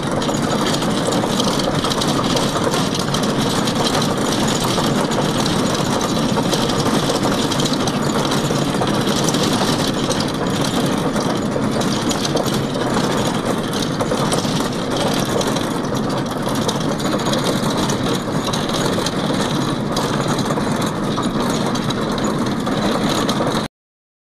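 Steady, loud running noise of a moving road vehicle heard from inside it: engine, tyres and wind together, with a constant rattle. It cuts off suddenly near the end.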